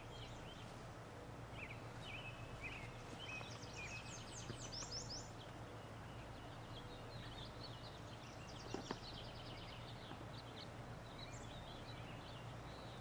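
Several small birds chirping and trilling faintly, with one quick run of falling notes about four to five seconds in, over a steady low hum. A single soft knock a little before nine seconds.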